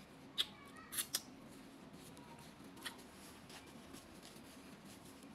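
Quiet eating sounds: a handful of short, sharp clicks, clustered in the first three seconds, over a steady low hum.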